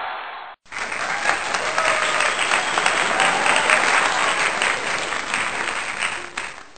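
Crowd applauding, a dense patter of many hands clapping with a few voices mixed in, starting abruptly about half a second in.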